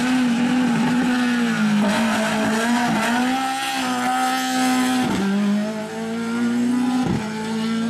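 Lada 2101 race car's naturally aspirated 1.6-litre four-cylinder engine running hard at high revs, its pitch held nearly steady, with brief breaks in the sound about five and seven seconds in.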